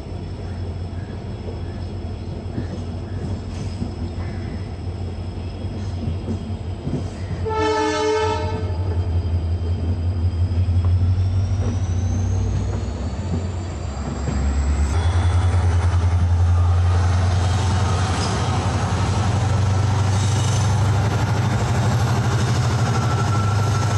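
A diesel-hauled express train running, heard from an open coach doorway: a steady low drone from the EMD WDP-4D locomotive and the wheels. A train horn blows once, for about a second, around eight seconds in. The drone grows louder about fifteen seconds in.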